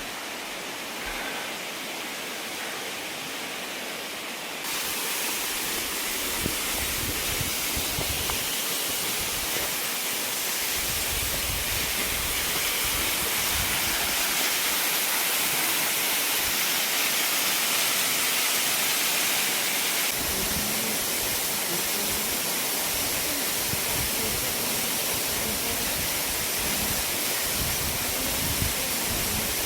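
Steady rush of mountain-stream water falling and tumbling over rocks, stepping up in level about four seconds in, with irregular low rumbles under it.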